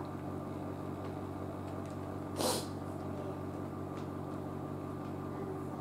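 Steady low mechanical hum of a room, with one short sharp puff of noise about two and a half seconds in.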